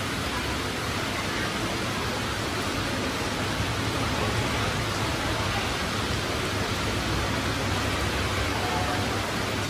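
A steady, even hiss of noise with a low hum beneath it.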